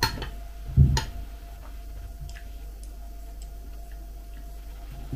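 Metal spoon clinking against a glass bowl while kefir with flakes is stirred: a sharp clink at the start and another about a second in, a dull thump just before the second, then a few faint ticks.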